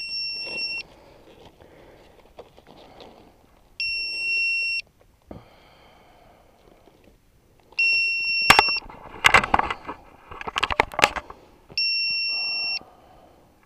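Electronic buzzer on a crashed FPV plane beeping: a long, high, steady beep about every four seconds, four times. Between the third and fourth beeps there is a run of crackling and clicking as hands handle the broken foam airframe and its wiring.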